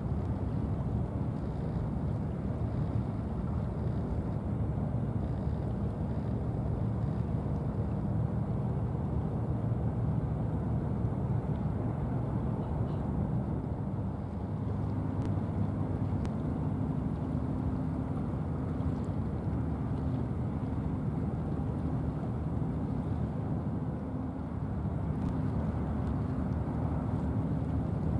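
Steady low drone of ship diesel engines, from a bulk carrier and its escorting harbour tug under way, with a few humming pitches that shift about halfway through.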